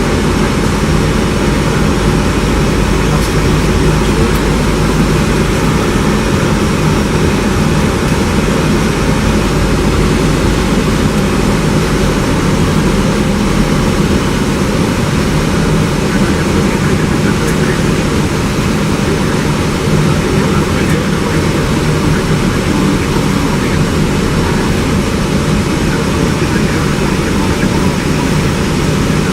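Steady, loud rushing noise of an Airbus A320 in flight, its engines and airflow heard from inside the aircraft on the approach to land, with a low hum under it.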